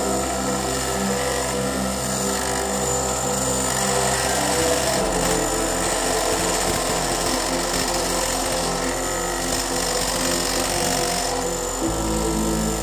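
Homemade mini wood lathe driven by a salvaged water-pump electric motor, running while a chisel scrapes the spinning wooden workpiece, with background music underneath.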